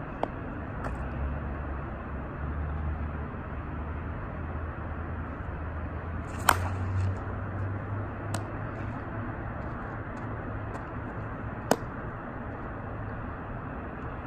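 Steady outdoor background noise with a low hum, broken by four sharp knocks; the loudest come about six and a half and eleven and a half seconds in.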